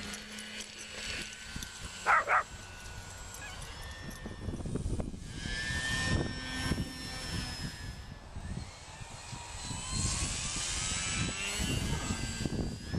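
Electric motor and propeller of a ParkZone Sport Cub RC plane whining in flight, the pitch gliding up and down as it flies past. A dog barks twice, quickly, about two seconds in.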